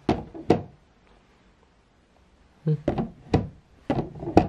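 Plastic flap of a pet door set in a cardboard box, pushed by hand and knocking against its frame. There are two knocks at the start, then, after a pause, a run of about six quick knocks.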